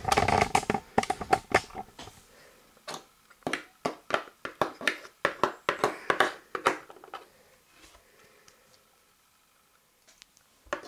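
Lego bricks and minifigures being handled and set down on a wooden desk: a run of small plastic clicks and knocks, which thins out into a quiet stretch, with one more click near the end.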